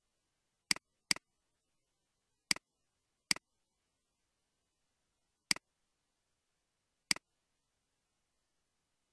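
Six sharp computer mouse clicks, the first two close together, with dead silence between them.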